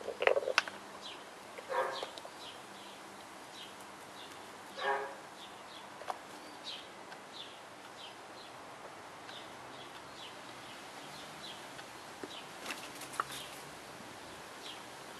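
Small birds chirping over and over in short, high, falling notes. Two louder, lower animal calls come about two and five seconds in, and there is a brief clatter at the very start.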